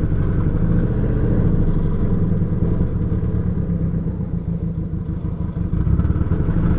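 2003 Volkswagen Jetta's 1.8-litre turbo four-cylinder engine idling roughly, its loudness pulsing unevenly and dipping briefly about two-thirds of the way through. The car is throwing camshaft position sensor (P0341) and camshaft timing (P0011) codes, which the owner thinks may come from the camshaft position sensor.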